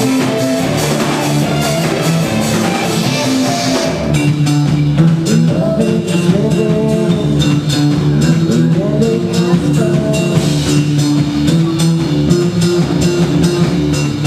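Rock music: guitar chords over a steady drum-kit beat.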